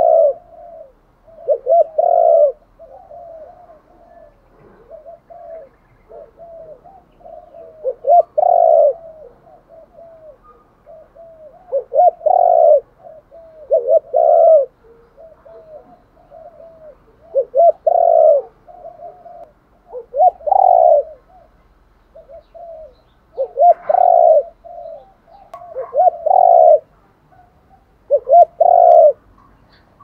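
Spotted dove cooing. Loud coo phrases repeat every two to four seconds, with quieter cooing between them.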